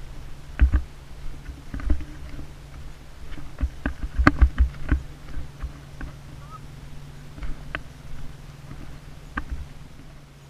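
Lifted Jeep Liberty crawling over a rocky trail: a steady low engine drone under irregular sharp knocks and clatter of rocks under the tires, loudest and busiest a little past four seconds in.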